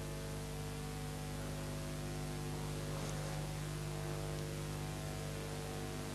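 Steady electrical mains hum with a low hiss; the modelling tool working the soft clay makes no clear sound of its own.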